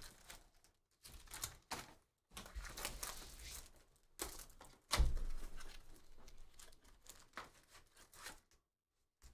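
Cardboard Bowman's Best card box being torn open by hand, with rustling and tearing of the cardboard flap and crinkling of the plastic shrink-wrap. A sharper thump about five seconds in is the loudest sound.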